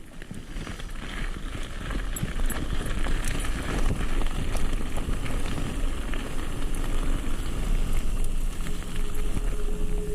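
Mountain bike rolling over a dirt trail: tyre noise with small clicks and rattles over a low wind rumble on the microphone, fading in over the first couple of seconds.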